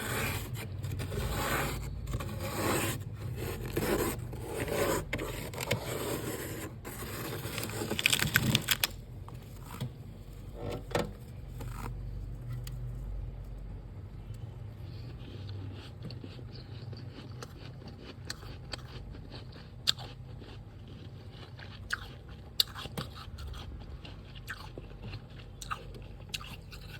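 Soft freezer frost being scraped, a quick run of repeated scraping strokes for about the first twelve seconds, loudest near the middle of that run. After that it is quieter, with scattered sharp clicks.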